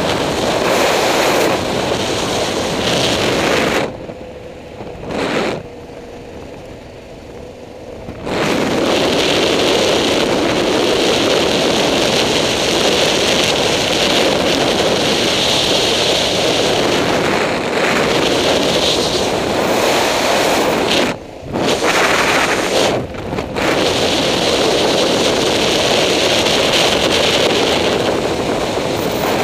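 Wind rushing over the microphone of a motorcycle riding along at speed, with the bike's running under it. The noise falls away for a few seconds about four seconds in, and twice briefly later.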